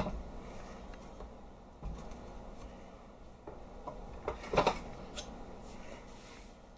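Quiet kitchen handling noises: a few soft knocks and scrapes against a stainless-steel stand-mixer bowl, with a short cluster of clinks about four and a half seconds in.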